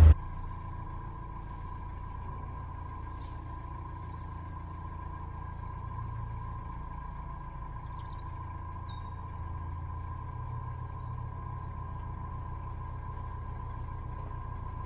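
Narrowboat's diesel engine running steadily while cruising, heard as a low rumble with a steady high tone over it.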